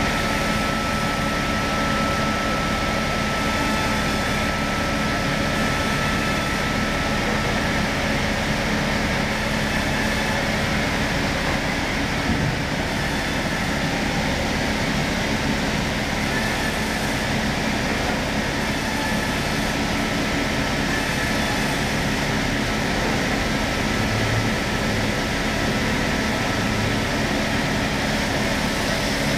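Electric log-sawing machine running steadily: an even mechanical noise with a constant low hum and a thin high whine.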